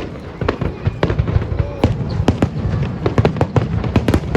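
Aerial fireworks bursting in rapid succession: many sharp bangs and crackles, several a second, over a continuous low rumble of booms.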